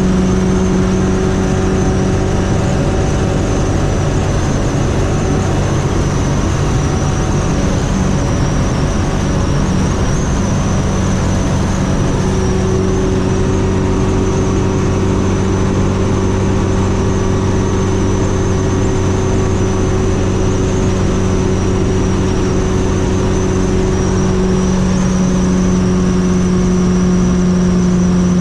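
Fiat 600 with a swapped-in 1.6-litre engine running at steady highway speed: a constant, even engine drone over road noise, holding one pitch throughout.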